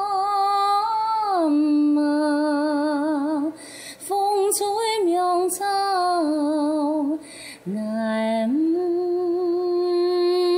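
A woman singing a Hakka mountain song (Dongguan Qingxi mountain song) unaccompanied. She holds long, wavering notes with sliding ornamental turns, broken twice by short pauses for breath.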